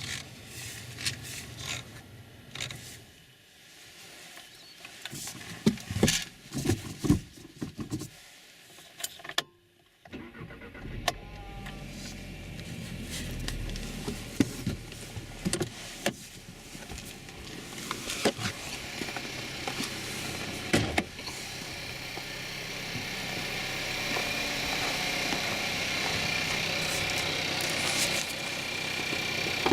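Skoda Octavia 1.4 TSI 150 hp petrol engine cold-started at −5 °C, catching about ten seconds in after a few knocks and clicks, then running at cold idle with a diesel-like rattle.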